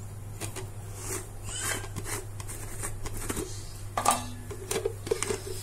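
Spoon and container clicking and scraping as ghee is spooned out to add to the pulao, in scattered short taps with the sharpest about four seconds in and a quick cluster near the end, over a steady low hum.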